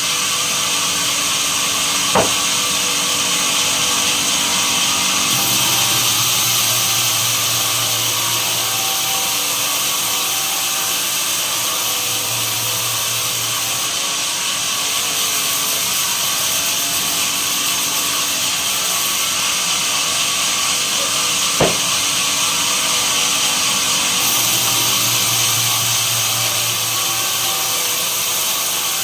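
Sawmill saw machinery running steadily while cutting pine, with a low hum that comes and goes and two sharp knocks, one about two seconds in and one about three quarters of the way through.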